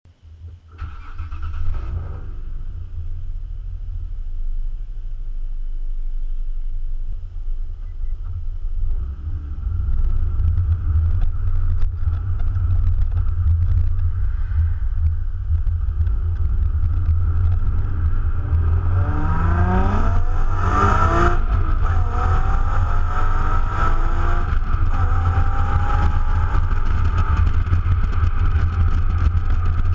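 Nissan 370Z's 3.7-litre V6 through its stock exhaust, heard right at the tailpipe: it starts up about two seconds in and runs at low speed, then rises in pitch as the car accelerates around twenty seconds in, settling into a steady cruise after that.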